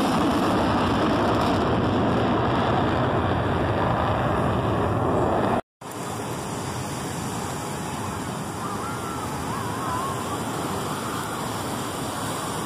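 Steady rushing roar of jet aircraft in flight, mixed with surf and wind noise on the microphone. The sound drops out completely for a moment just under six seconds in, then goes on a little quieter as the distant engine noise of a C-17 and KC-135 flying together.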